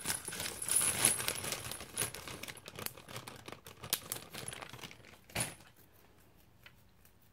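Small resin charms on metal rings, with beads attached, clinking and jingling together as they are handled. A louder clack comes about five and a half seconds in, and then it goes quiet.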